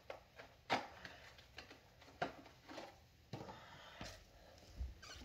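A few faint, irregular clicks and knocks, about half a dozen, from hands-on work on a car during an oil change, with a low rumble coming in near the end.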